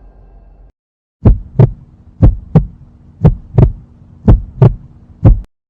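Heartbeat sound effect: four loud low 'lub-dub' double thumps about a second apart, then a single thump, over a faint hum.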